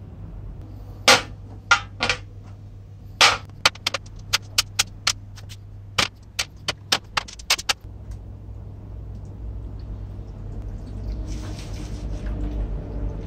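Small steel parts of a disassembled air screwdriver clinking as they are set down one after another in a metal tray, a quick run of sharp clinks. About eleven seconds in, liquid starts pouring into the tray over the parts, over a steady low hum.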